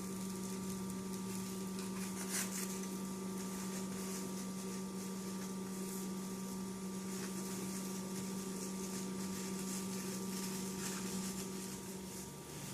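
A steady low hum with a constant pitch, with a couple of faint clicks or taps.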